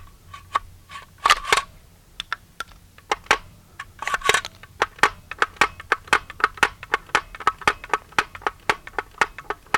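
Streetsweeper 12-gauge shotgun's drum mechanism clicking as the drum's spring is wound back up: a run of sharp metallic clicks that settles into a steady rhythm of about four a second, with a couple of brief handling rustles early on.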